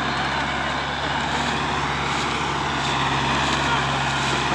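Belarus MTZ-50 tractor's four-cylinder diesel engine running steadily as the tractor moves off with a loaded trolley. The seller says the engine is in good order.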